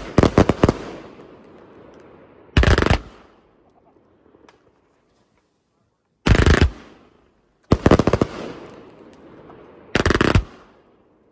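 Multi-shot firework cake firing five quick volleys of sharp reports a few seconds apart. Each volley trails off into a fading hiss.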